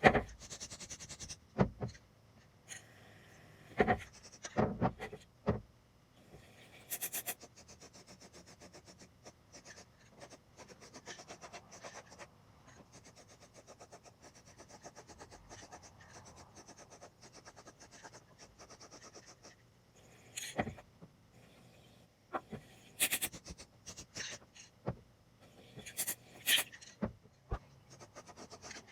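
Hand work on a metal part, likely the crank pulley or harmonic balancer being cleaned up: a steady scraping and rubbing, broken by scattered sharp knocks and clatters of parts or tools being handled.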